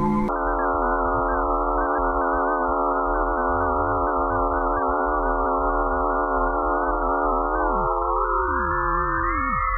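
Eerie electronic space-sound drone made of many layered steady, slightly wavering tones over one constant mid-pitched hum, cutting in just after the start. From about eight seconds in, several tones glide upward while others slide down and drop away. It is billed as the magnetic-field and radio-wave sounds of Pluto.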